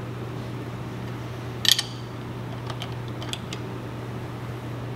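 Wrench clinking against the nuts and studs of a homemade rear main seal press as the nuts are turned in half turns, pressing the rear main seal evenly onto a John Deere 4045 crankshaft. One sharp metal clink about one and a half seconds in is the loudest, followed by a few lighter ticks, over a steady low hum.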